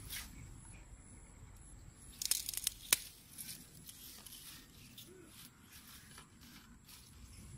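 Grass and reed stems rustling and crackling close to the microphone, with a cluster of sharp crackles between about two and three seconds in.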